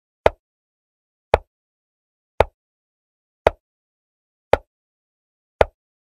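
Chess software's piece-move sound effect: a short, sharp click as each move is played on the board, six times at an even pace about a second apart.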